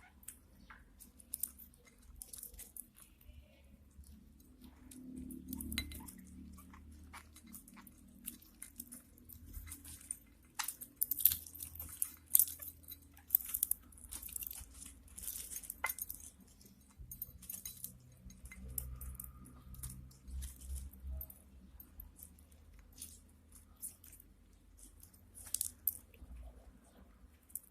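Budgies eating: a scattered run of short, crisp clicks and crunches as they peck and crack food, busiest in the middle.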